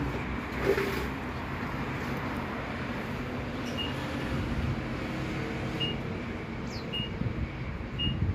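Washing machine running with a steady low motor rumble and hum. Short high chirps sound several times in the second half.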